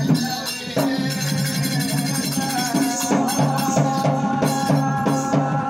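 Oggu Katha folk music: a fast, even drum beat with metallic jingling over it, and a steady held tone that pulses in time with the beat from about halfway through.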